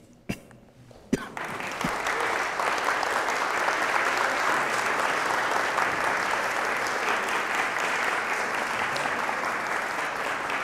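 An audience applauding. The clapping breaks out about a second in, after a couple of sharp knocks, and keeps up steadily.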